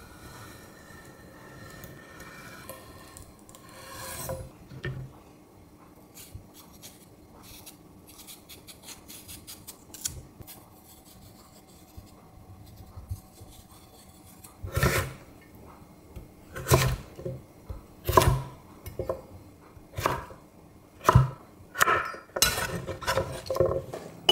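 Kitchen knife cutting cucumbers: first soft slicing and scraping as the knife works through a cucumber and pares a piece held in the hand, then, from a little past halfway, a series of sharp knife chops on a wooden cutting board, about one a second.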